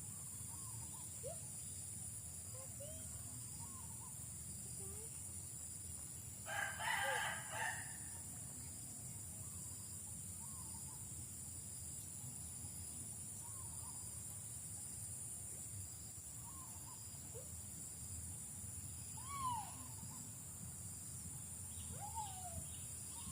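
A rooster crows once, about seven seconds in, over a steady high trilling of insects and scattered short, faint chirping calls.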